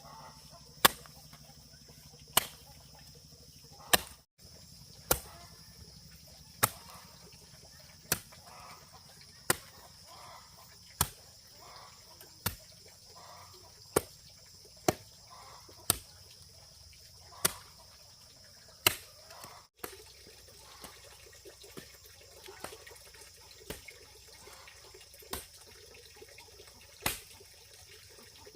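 Steady chopping: sharp strikes of a blade or tool, about one every second and a half.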